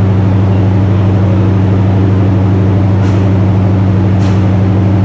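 Steady low drone of a diesel passenger train's engine running. Two faint short clicks come about three and four seconds in.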